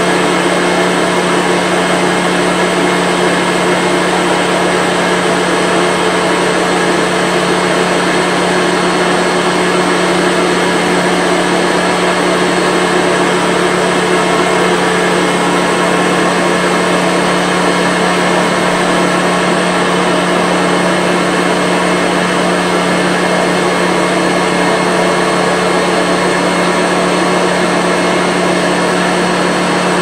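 1995 Hoover Commercial C1125 upright vacuum cleaner running steadily in place, its motor holding one even pitch and level throughout.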